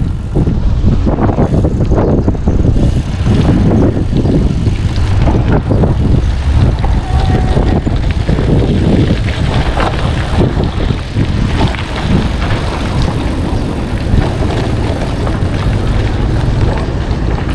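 Wind buffeting the microphone on a moving bicycle: a loud low rumble that swells and eases unevenly, mixed with road and traffic noise.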